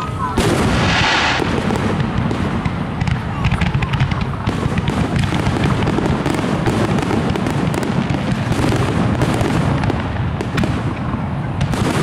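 Fireworks display: a continuous barrage of aerial shells launching and bursting, with dense overlapping bangs and crackling. A loud hissing crackle comes about half a second in and lasts about a second.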